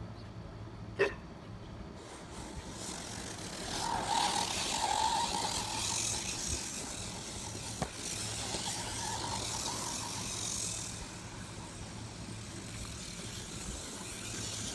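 Radio-controlled toy car's motor whining as it drives fast across grass, louder from about four to eleven seconds in. A sharp click comes about a second in.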